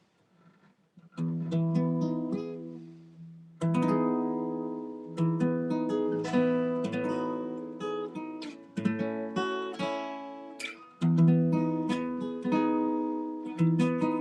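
Acoustic guitar played solo, starting about a second in: chords struck and left to ring and fade, a new chord every second or two.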